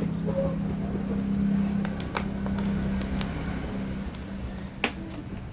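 A steady low hum that swells and then fades, with a few sharp clicks of plastic clips snapping loose as a laptop's bottom cover is pried off.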